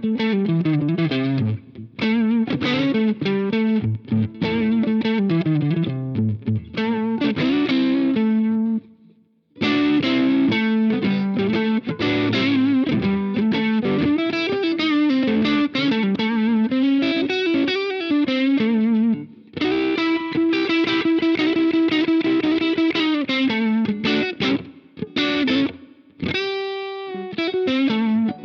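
Electric guitar played through an iSet Dumbler, a Dumble-style overdrive pedal, with a moderate overdriven tone. The playing is a run of picked riffs and chords, with a short break about nine seconds in and a held chord near the end.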